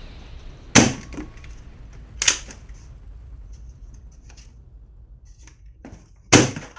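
A toy gun firing three sharp shots: the first about a second in, the next a second and a half later, and the last near the end. Fainter clicks of handling come between them.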